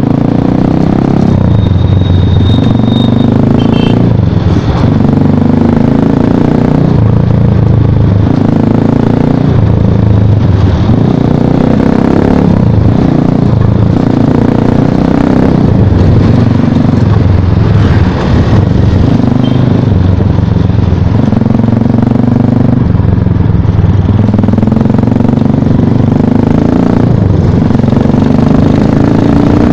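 Motorcycle engine running under way, its note rising and falling in steps every second or two as the throttle is worked and the gears are changed.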